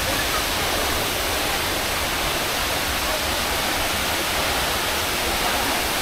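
Jeongbang Waterfall's falling water rushing steadily and evenly.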